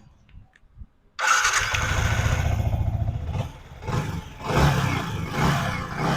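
Yamaha R15 V3's 155 cc single-cylinder engine starting about a second in and settling to a steady idle, then blipped up and down several times. With a new exhaust rocker arm and the valve clearances reset, the head noise is gone and the engine sounds normal.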